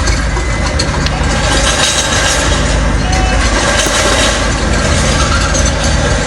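Heavy diesel engine of construction machinery running steadily, under a continuous rush of noise.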